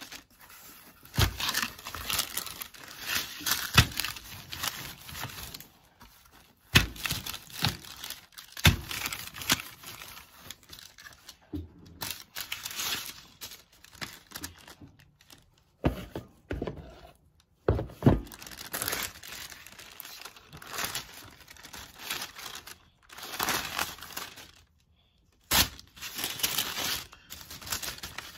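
Paper and plastic wrap crinkling and rustling in irregular bursts as pizza dough is handled, peeled from the sheet and pressed flat by hand, with several sharp knocks on the counter.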